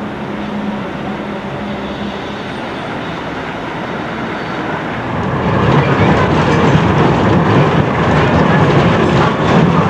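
Old Lisbon streetcar running on its rails: a steady rumble at first, then, from about halfway, louder rattling with repeated sharp clicks, as heard from inside the tram's cab.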